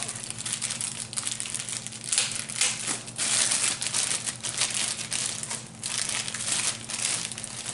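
Clear plastic wrapping crinkling and rustling in irregular crackles as it is pulled and peeled off a TV stand leg.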